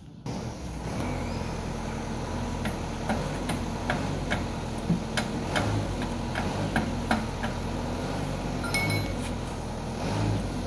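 Short, sharp metal clinks and taps at uneven intervals, a few each second, from hand tools and parts being worked on at a truck's wheel hub, over a steady low machine hum.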